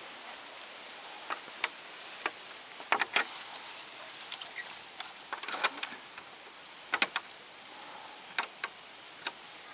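About a dozen sharp, irregularly spaced clicks and taps over a faint steady hiss.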